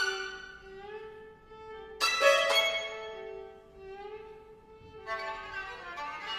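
Two violins playing a duo. A low note is held and bends slightly in pitch, a loud, sharp bowed chord cuts in about two seconds in and fades away, and near the end a busier passage of quicker notes begins.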